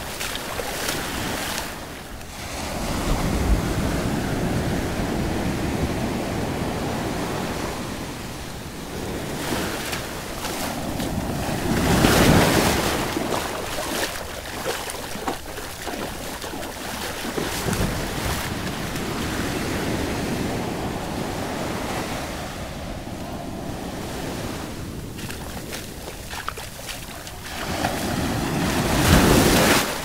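Small ocean waves washing up over wet sand at the shoreline, foam hissing as each wash runs in and drains back, with wind buffeting the microphone. The surf swells several times, loudest about twelve seconds in and just before the end.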